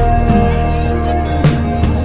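Music with a regular beat and long held notes over a deep bass.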